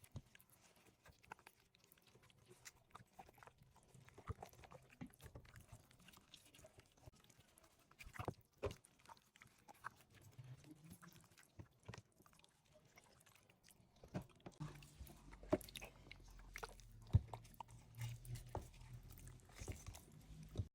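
Faint, scattered clicks, taps and crunching from food and utensils being handled, with a low hum coming in after about fourteen seconds.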